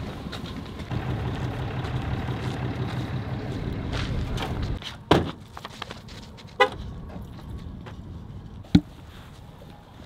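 A vehicle engine running steadily, cutting off abruptly about halfway through, followed by a few scattered knocks and one sharp thud near the end.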